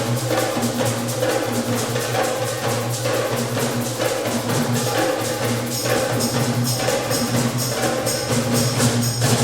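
Wind band playing a slow dance over a low held note, with percussion strikes keeping a steady beat.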